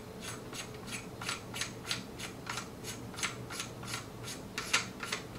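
Flash hider being screwed by hand onto the threaded muzzle of a Charles Daly N4S 12-gauge shotgun barrel: a run of short metallic clicks and scrapes, about three a second, as the threads turn.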